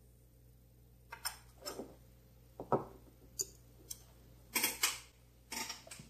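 Small metal parts of a Ronson gas lighter and a screwdriver being handled on a wooden tabletop: a run of about ten short clicks, taps and brief scrapes, starting about a second in.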